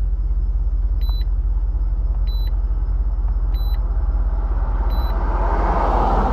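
Car engine idling with a steady low rumble, while a short high-pitched beep sounds about every second and a quarter, four times. Near the end a broad rushing noise swells over the idle.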